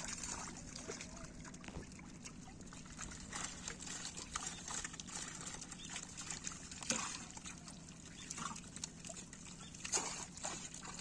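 Pond water sloshing, trickling and dripping as fish are scooped out of a seine net into plastic baskets, with irregular small splashes; the loudest come about seven and ten seconds in.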